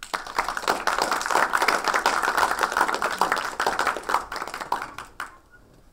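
Audience applauding, starting at once and dying away about five seconds in.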